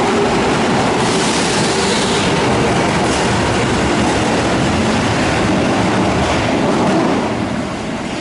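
Osaka subway 22 series train running along the platform, a steady loud rumble with wheels clattering over rail joints. It falls off about seven seconds in.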